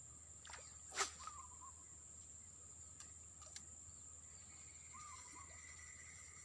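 Quiet riverside ambience with a steady high-pitched hum, a single sharp click about a second in, and a couple of faint, short warbling calls.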